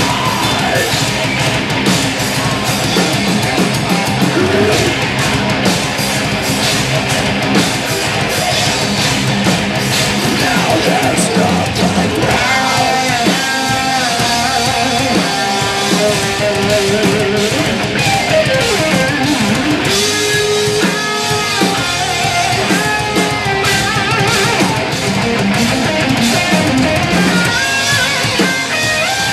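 Live rock band playing loud through stage amplification: electric guitars over a drum kit, with a melodic guitar line standing out from about halfway through.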